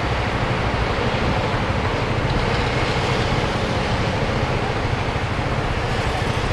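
Steady road traffic passing close by at a city junction: lorries, cars and a motorcycle going past in a continuous rush of engine and tyre noise.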